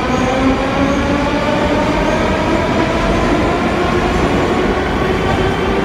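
Moscow Metro train accelerating out of the station, its electric traction motors whining and rising slowly in pitch over the loud rumble and rattle of the wheels on the rails.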